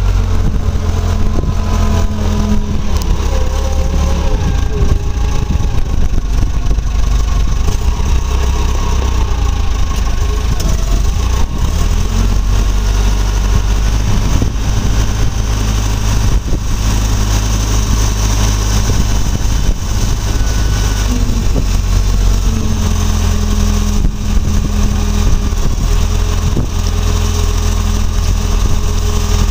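Volvo BM 4200 wheel loader's diesel engine running, its speed rising and falling a few times while the loader drives and lifts its bucket.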